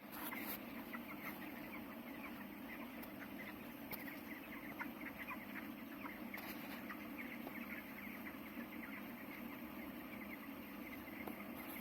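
A shed full of 19-day-old broiler chickens chirping and clucking softly, many short calls overlapping, over a steady low hum.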